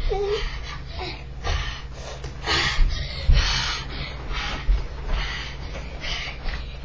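Children breathing hard in short gasps and puffs while wrestling, with scuffling and dull thumps of bodies on the carpet.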